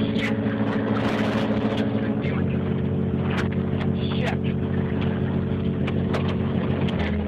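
A motor running steadily, its hum stepping to a different pitch about two seconds in and again near the end, with scattered clicks.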